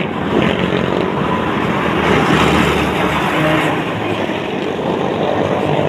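Steady road traffic noise, with cars and other motor vehicles running by close to the roadside.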